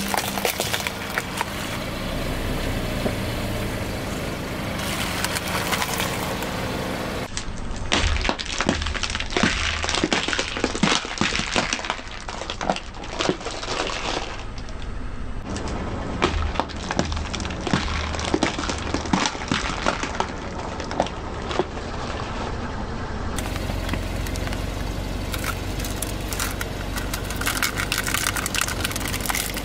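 Car tyre rolling over and crushing small plastic candy containers: many sharp cracks and crunches over the low running of the car. Near the end come lighter clicks as candies are shaken out of a crushed container into a hand.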